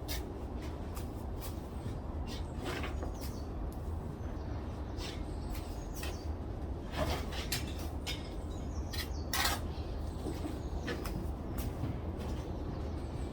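Hand-tool building work: irregular light taps and clicks, a couple of them louder, over a steady low rumble.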